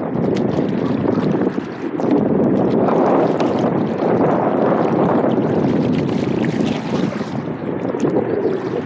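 Wind buffeting the microphone in gusts, with small waves slapping against the hull of a plastic kayak.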